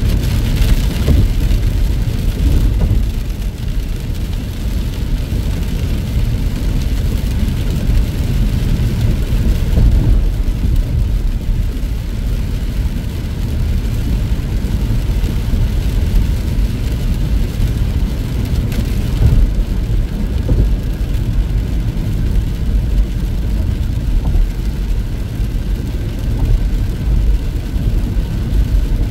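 Vehicle driving on a highway: a steady, low road and engine rumble that holds an even level throughout.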